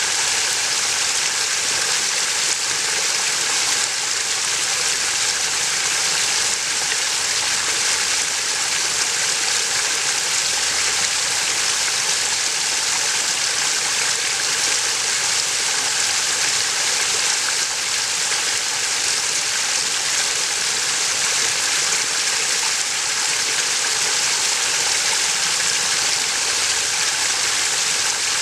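Water spilling over a boulder waterfall feature into a swimming pool: a steady, even rush of falling water.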